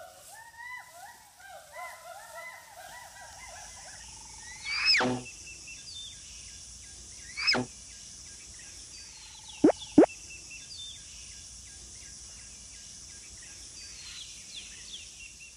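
Outdoor nature ambience: birds chirping for the first few seconds, then a steady high insect drone. It is broken by four quick falling swoops, the last two close together about ten seconds in and the loudest.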